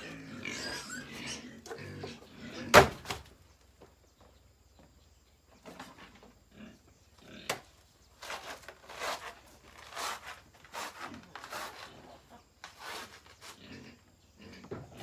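Pigs grunting and squealing in short separate calls, with one sharp knock about three seconds in.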